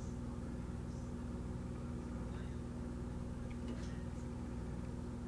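A steady low hum with one constant tone, like an appliance or machine running, with a few faint ticks about two to four seconds in.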